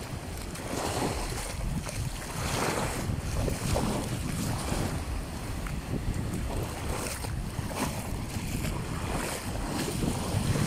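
Small surf breaking and washing up the sand in the shallows, with water sloshing as someone wades along the edge. Wind rumbles steadily on the microphone underneath.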